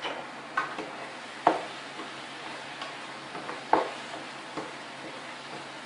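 Pans of tomatoes and peppers cooking on the stove: a steady hiss with scattered sharp pops, the two loudest about a second and a half and just under four seconds in.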